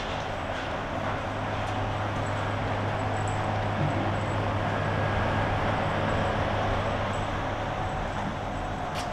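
Steady rumble of a train running nearby, with a constant low hum under it.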